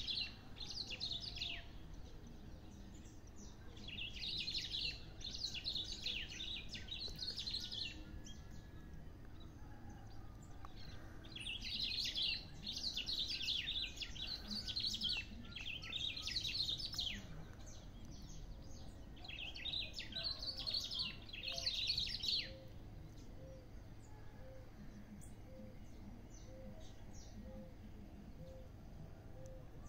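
Bico-de-pimenta (black-throated grosbeak) singing: bursts of quick, high chirping phrases, each a couple of seconds long, four times with pauses between.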